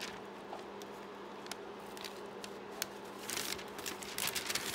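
Thin, brittle carbon-copy paper rustling and crinkling as the sheets are handled and turned, with a few louder rustles past the middle and near the end. A steady low hum runs underneath.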